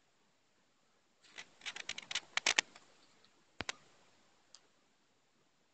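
A quick irregular run of sharp clicks and taps, from about a second in to nearly three, then one strong single click and a faint one later; in between, near silence. Typical of a phone being handled while it films.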